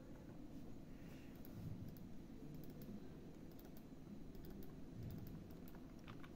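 Faint, scattered clicks of a computer keyboard and mouse over a low steady hum.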